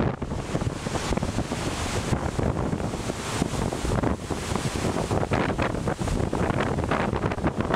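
Heavy storm surf breaking over rocks, mixed with wind gusting across the microphone: a steady, dense wash of noise with rapid flutter and no single distinct crash.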